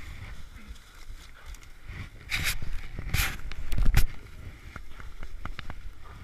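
Rustling and scuffling noise in a few short bursts, the loudest a heavy thump about four seconds in, followed by several light sharp knocks.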